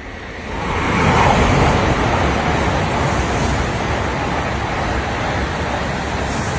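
Shinkansen bullet train running past a station platform at speed: a rushing noise of air and wheels swells sharply about half a second in, then holds as a loud, steady rush while the cars stream by.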